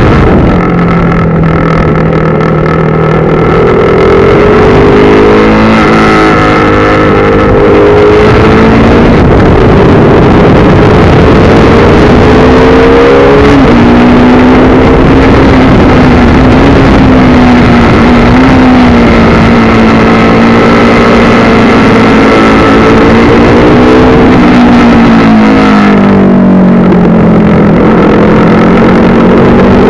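KTM RC390's single-cylinder engine running hard, heard from on the bike, its pitch climbing and falling repeatedly as it accelerates down straights and slows for corners, with a long drop a few seconds before the end and then a climb again. Steady wind rush sits under the engine throughout.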